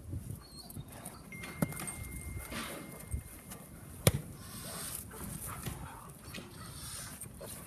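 Young Doberman barking in irregular bursts while a helper agitates it with a bite pillow, with a single sharp crack about four seconds in.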